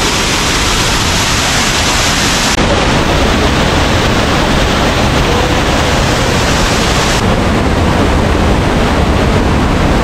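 Waterfall rushing loudly and steadily, a dense wash of falling water. The sound turns duller about two and a half seconds in and again about seven seconds in.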